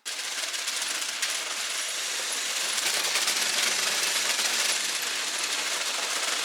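Two motorized Mould King building-block machines, an excavator and a bulldozer, straining against each other in a tug-of-war: their plastic tracks and gears grind and slip on loose stones, making a dense, steady crackle of small clicks.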